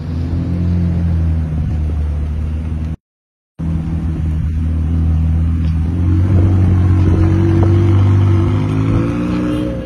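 McLaren 720S twin-turbo V8 engine running with a steady low drone, rising slightly in pitch near the end. The sound drops out completely for about half a second around three seconds in.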